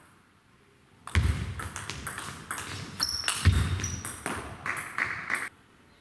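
Table tennis rally: the ball clicking sharply off bats and table in quick succession, with a couple of low thuds and a few short high squeaks. It starts about a second in and stops about half a second before the end.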